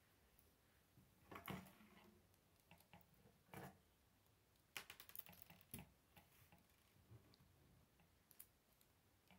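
Faint plastic clicks and rattles of K'nex rods and connectors being handled, scattered irregularly, with a quick run of clicks about five seconds in.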